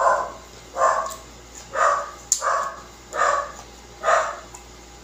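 A dog barking over and over, one short bark about every second.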